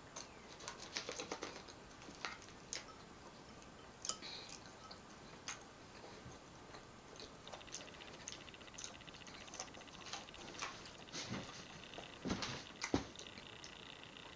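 Close-up eating sounds: chewing with wet mouth clicks and smacks, scattered irregularly, of someone eating loaded fries with tartar sauce. A faint high buzz comes in twice in the second half.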